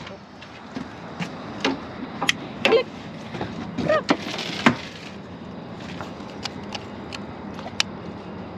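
Clicks, knocks and scrapes of gear being handled in a fishing boat over a steady background hiss, with a sharp click near the end.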